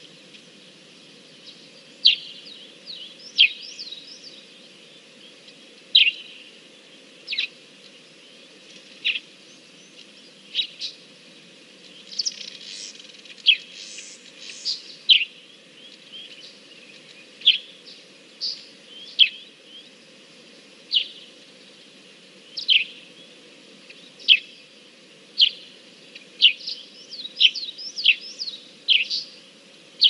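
Wild songbirds chirping: short, sharp notes, most sweeping quickly downward, repeated every second or two and coming thicker in places, over a steady low background rumble.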